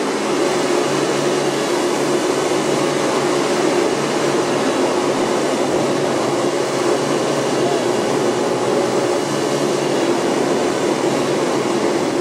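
Several small model-aircraft engines on a large radio-controlled model of the Hughes H-4 Hercules flying boat running together at a steady idle, a continuous buzzing drone.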